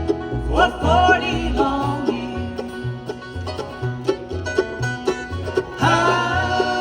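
Bluegrass band playing, with banjo picking over a pulsing bass line. A lead instrument slides up in pitch about half a second in, and held notes come in near the end.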